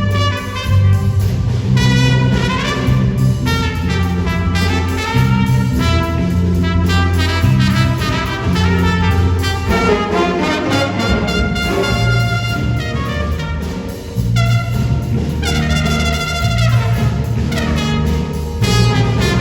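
Jazz played by a brass section, trumpets and trombones, over a steady bass line, with a few falling brass slides in the second half.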